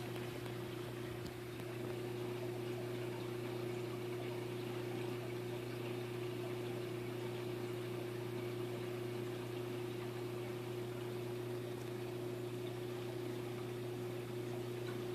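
Aquarium pump running with a steady hum and an even hiss.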